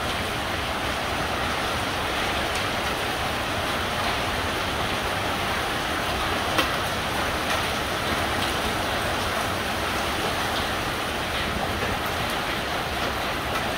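Heavy downpour mixed with pea-sized hail: a steady dense hiss of rain with scattered sharp ticks of hailstones striking, one louder tick about six and a half seconds in.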